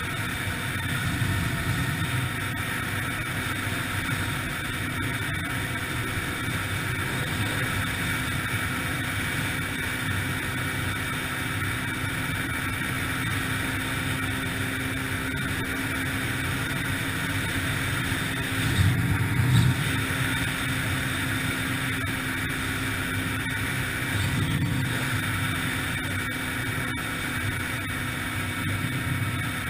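Yamaha TT-R125LE dirt bike's single-cylinder four-stroke engine running steadily while riding, with two brief louder surges past the middle.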